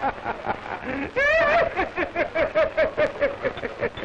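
A man laughing hard in rapid, repeated ha-ha pulses, about five a second, with a high squealing rise about a second in.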